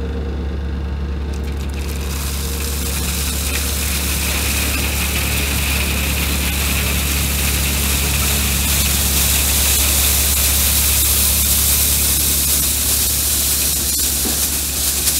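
Gravel pouring from an excavator bucket down into a steel trench box: a steady rushing hiss that starts about two seconds in and builds, over the low steady running of the excavator's engine.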